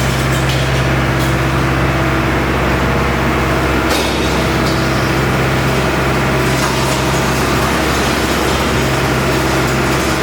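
Hyundai R85A Smart crawler excavator's diesel engine running steadily at working revs, with a couple of faint knocks partway through.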